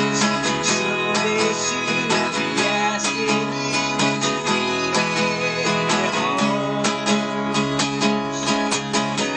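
Small band playing live: an acoustic guitar strummed in a steady rhythm, with electric bass and electric guitar.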